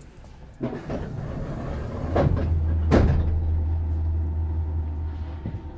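Inside a Meitetsu 6000 series train car, a sliding door shuts: a rush of noise, then two sharp knocks, the second the louder. A steady low hum runs under it until the end.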